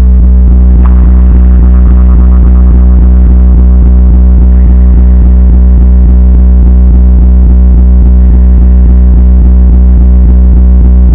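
Bass-heavy DJ remix music, very loud: a steady deep bass note with fast, even rhythmic pulses over it.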